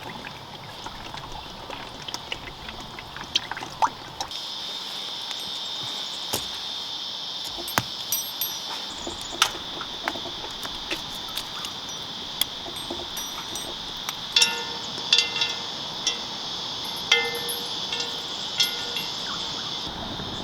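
A steady high insect drone that starts about four seconds in, with scattered sharp crackles and, later, several short ringing, chime-like notes.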